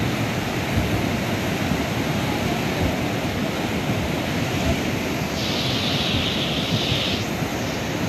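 Muddy floodwater rushing and churning through a swollen river in flash flood, a steady noisy rush with a louder hiss for about two seconds past the middle.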